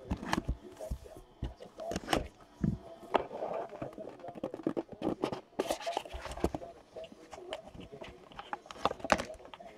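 Hands handling and opening a cardboard trading-card hobby box: irregular taps, clicks and scrapes of the box and lid being lifted and slid apart, with short stretches of rubbing.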